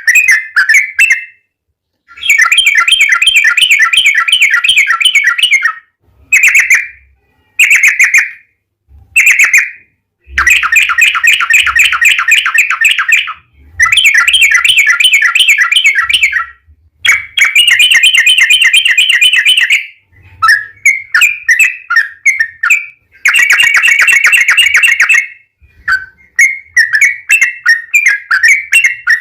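Yellow-vented bulbul (trucukan) singing loudly: long fast trilling runs of rapidly repeated bubbly notes, each two to four seconds, alternating with short chirpy phrases and brief pauses.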